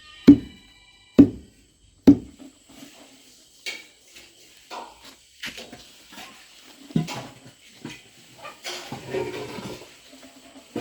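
Three heavy thuds about a second apart, then lighter scattered knocks and clatter.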